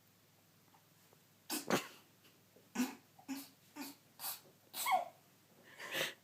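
A woman in a long sneezing fit: a run of about eight short sneezes in quick succession, starting about a second and a half in.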